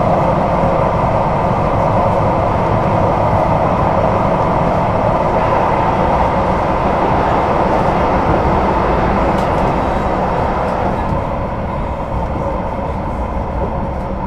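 Duewag/Kiepe B80D Stadtbahn light rail car running on the line, a steady noise of wheels and running gear that eases off slightly near the end.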